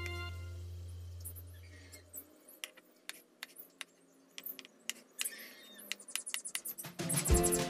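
A kitchen knife dicing a block of tofu on a wooden chopping board: a string of sharp, irregular taps of the blade striking the board. Background music fades out over the first two seconds and comes back loudly near the end.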